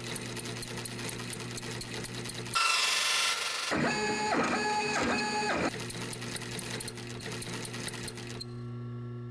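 Industrial sewing machine running, a steady hum with rapid, even needle ticks. About two and a half seconds in it gives way to a 3D printer, its stepper motors sounding as tones that step up and down in a repeating pattern for a few seconds. Then the sewing machine hum and ticking return.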